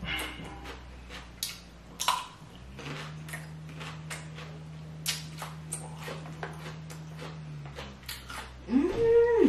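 A person chewing a crunchy vegetable pod: a run of short wet crunches and clicks, with a short rising 'mm' from the eater near the end as the loudest sound.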